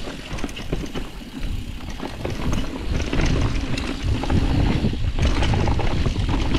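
Mountain bike riding down a dirt trail: steady tyre noise with frequent knocks and rattles from the bike over the ground, getting louder about halfway through as speed picks up.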